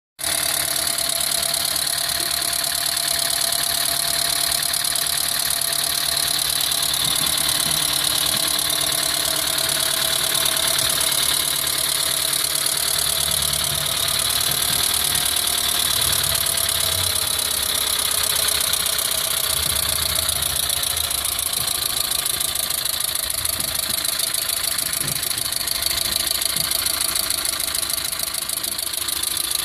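Engine idling with a fast, steady ticking from the valvetrain, which the owner puts down to bad lifters.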